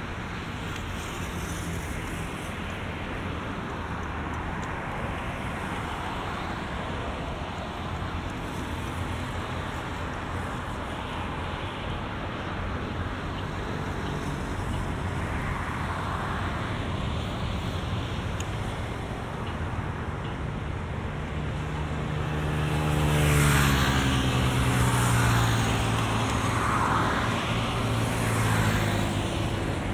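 Steady road traffic from cars on the multi-lane avenue beside the path. About two-thirds of the way through, a louder motor vehicle comes close and passes, its engine hum clearly heard for several seconds.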